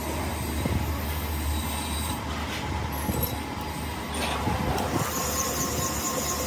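Valve-seat boring machine running with its cutter machining a valve seat pocket in an engine cylinder head: a steady motor hum under a harsh metal-cutting noise, with a high metallic squeal coming in about five seconds in.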